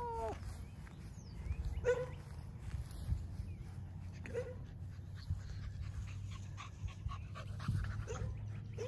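Dogs whining: a falling whine right at the start, then brief pitched yelps about two seconds in, again about four seconds in, and once more near the end.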